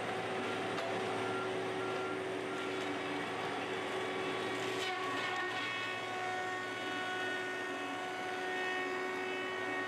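Wheeled feller buncher running steadily, its engine and hydraulics giving several steady tones while the felling head cuts bamboo. About five seconds in there is a brief crackle, and a higher whine follows.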